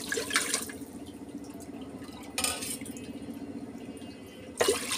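Water poured from a steel tumbler into a pressure cooker, splashing in three short bursts: at the start, about two and a half seconds in, and near the end. A steady low hum runs underneath.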